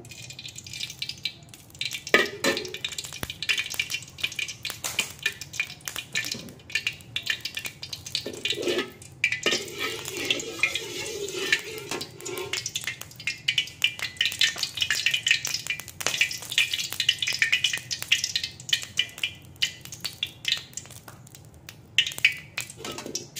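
Metal spatula scraping and tapping around a steel wok as cooking oil heats in it, with a light crackling sizzle, many quick clicks and scrapes throughout.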